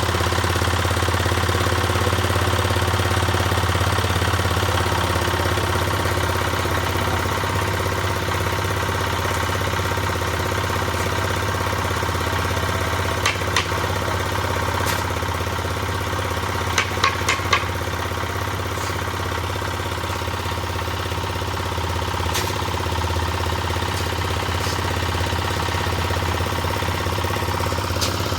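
Concrete mixer's engine running steadily with a constant low hum. A few sharp metallic knocks cut through: a pair about halfway, then a quick run of four a few seconds later.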